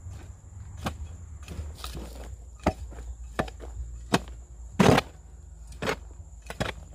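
Irregular knocks and scrapes of a hand tool working a heap of manure and rice bran being mixed for compost, about ten strokes, the loudest near the middle.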